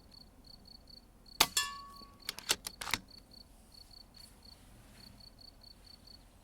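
A single shot from an FX Impact M3 PCP air rifle, a sharp crack with a brief ringing tone, followed about a second later by three quick clicks as the side-lever action is cycled to chamber the next pellet. An insect chirps faintly in a fast, even pulse.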